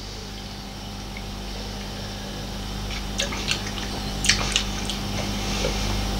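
Wet mouth sounds of a dark ale being tasted: small clicks and smacks begin about three seconds in, over a steady low hum.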